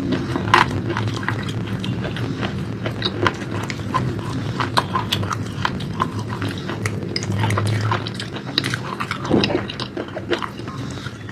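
Close-up chewing of crunchy food: many short, irregular crunches and wet mouth clicks over a low steady hum.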